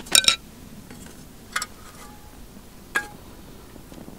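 Metal camping stove parts clinking as an Esbit solid-fuel stove is put together: a metal windscreen set down on a perforated grate and a metal canteen cup set into it. There is a quick cluster of sharp clinks with a brief ring right at the start, then single clinks about one and a half and three seconds in.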